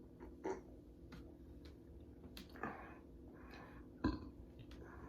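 Faint mouth noises of someone eating chicken wings: a few short smacks and clicks between soft chewing, the sharpest about four seconds in.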